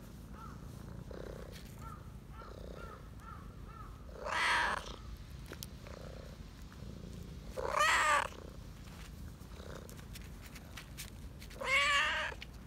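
A tabby-and-white cat meowing three times, about four seconds apart.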